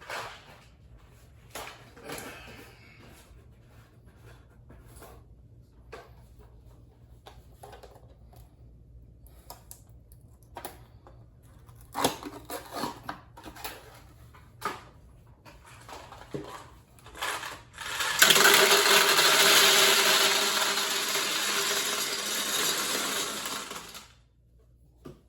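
Hard candies rattling and clicking as they are handled, then, about eighteen seconds in, a loud continuous rattle of candies being poured back into a vending machine's canister that lasts about six seconds and stops abruptly.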